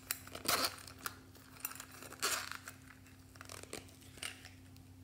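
Zipper on a small coin purse being pulled open, in two short zipping strokes, with lighter clicks and rustles of handling between.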